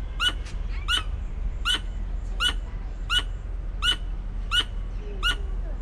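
A tree squirrel calling from a tree: a loud, harsh chuck repeated about eight times, evenly, roughly every 0.7 seconds. The onlookers take it for courtship calling.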